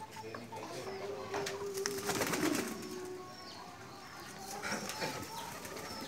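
Domestic pigeons cooing, with one long, low, steady coo from about a second in to about three seconds. Short, high chirps from another bird repeat throughout.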